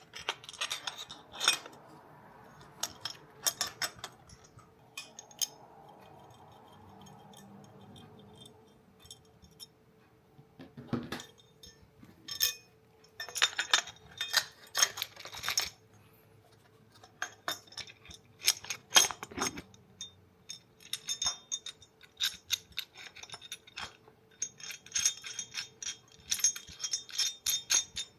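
Small metal camera-rig parts being handled and fitted together: irregular clinks and light knocks, coming in clusters with short pauses between them.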